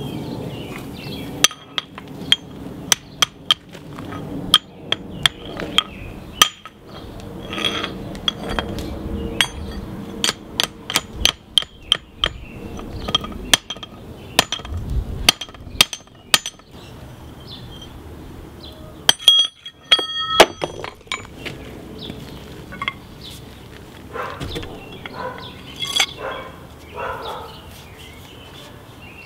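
Hand hammer striking a hot forged axe head on a steel mandrel over the anvil, shaping the axe's eye: a long run of sharp, ringing metal strikes at about two a second. About twenty seconds in come a few clangs that ring on clearly, then softer knocks.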